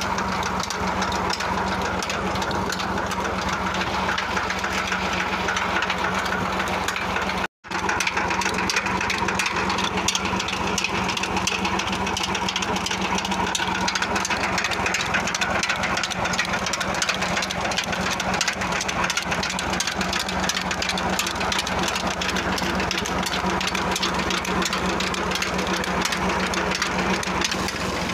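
Tractor engine running steadily as it drives a tubewell pump through its PTO shaft and a belt pulley. The sound drops out for a moment about seven and a half seconds in, then resumes unchanged.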